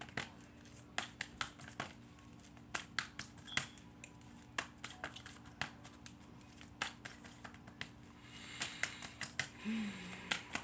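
Tarot cards being handled and shuffled: irregular sharp clicks and snaps of card stock, growing into a denser rustling shuffle near the end, with a brief murmur from the reader.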